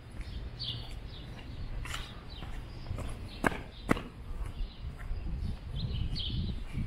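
Footsteps on a wet street, with birds chirping now and then. Two sharp clicks a little past the middle are the loudest sounds.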